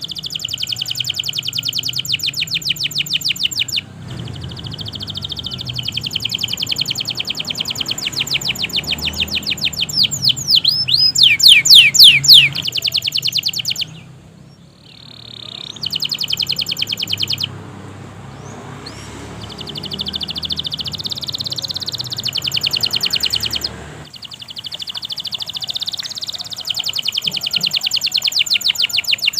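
Domestic canary singing a long, continuous song of rapid trills and rolls, switching to a new trill every few seconds, with a run of quick downward-sweeping whistles around eleven seconds in. A low rumble runs underneath.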